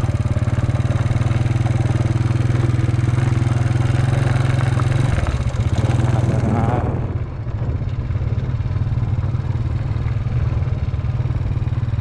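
Small step-through motorcycle's engine running steadily while being ridden; about five to seven seconds in the engine note changes and the throttle eases off, with a brief dip in loudness before it settles into steady running again.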